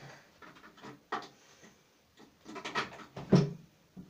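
A few light clicks and rustles of things being handled, then a cluster of knocks ending in one sharp bump a little over three seconds in.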